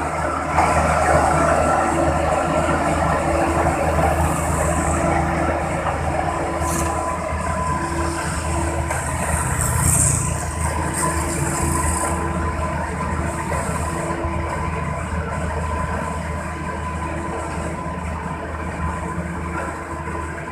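A large machine engine running steadily with a low drone and a faint steady whine, swelling briefly about halfway through.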